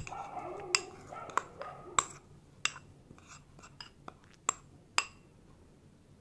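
Steel spoon clinking against glass bowls while scraping semolina paste from one bowl into another: a string of sharp clinks, roughly one every half second to second, with soft scraping in the first second and a half.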